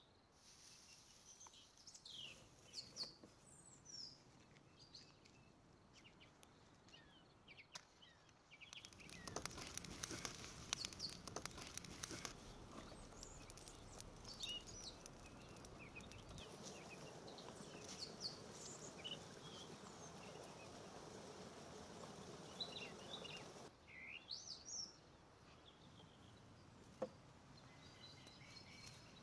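Small birds chirping now and then over quiet outdoor ambience. About nine seconds in, a louder crackling and rustling starts as a kindling fire catches on the pit oven's stone lid. It settles into a steady low hiss and drops away about fifteen seconds later.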